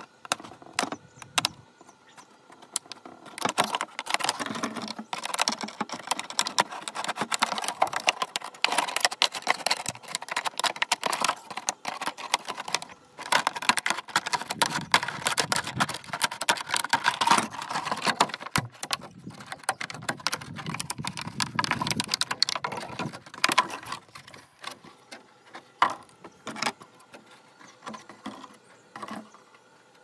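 Kitchen scissors cutting through the thin, soft wall of a large plastic bottle, the plastic crackling and crinkling as it is cut and flexed. The cutting starts a few seconds in and goes on for most of the time, thinning to scattered crinkles near the end.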